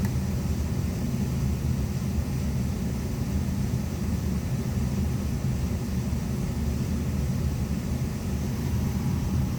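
Steady low rumble with no rhythm or clear pitch.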